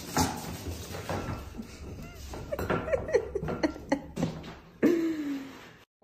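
A cat meowing in several short calls, then one longer falling meow about five seconds in, over a background hiss.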